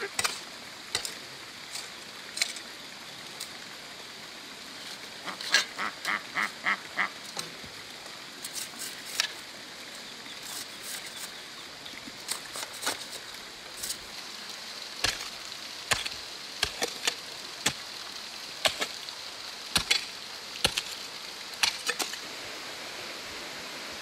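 A duck quacking in a quick run of calls, briefly at the start and again about five seconds in, the loudest sounds here. Between and after them, the blade of a hoe strikes and scrapes into soil in sharp separate blows, more often in the second half.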